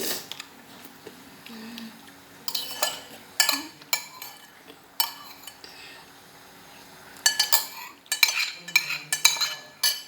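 Cutlery clinking and scraping against a dish while eating instant noodles with egg and rice: scattered sharp clinks, then a quicker run of them in the last few seconds.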